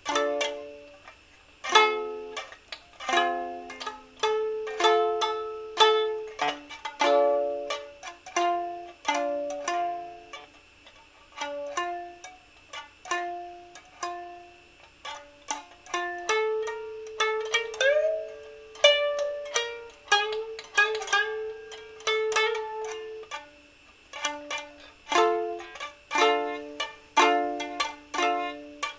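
Solo improvised music on a plucked string instrument: single notes and small chords that start sharply and die away, with a longer held note that bends in pitch around the middle.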